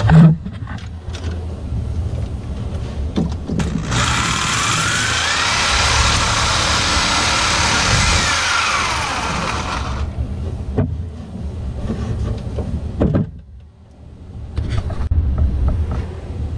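Sawzall reciprocating saw cutting through a water pipe. Its motor pitch climbs as it speeds up about four seconds in, runs hard with a loud hiss of cutting for several seconds, then falls away around nine to ten seconds. A few knocks follow as the saw is handled.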